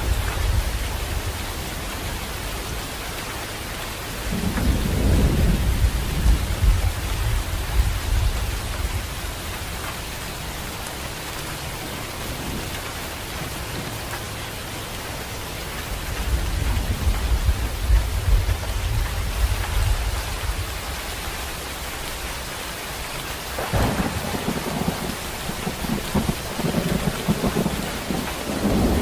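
Steady rain hissing, with rolling thunder rumbling low several times: a swell a few seconds in, a longer roll in the middle, and a sharper clap a little over twenty seconds in that rumbles on toward the end.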